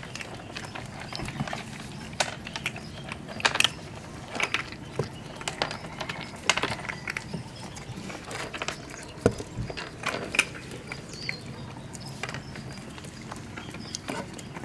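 Six-week-old Chihuahua–terrier–Pomeranian mix puppies eating dry kibble off a hard floor: an irregular run of crisp clicks and crunches, a few sharper than the rest.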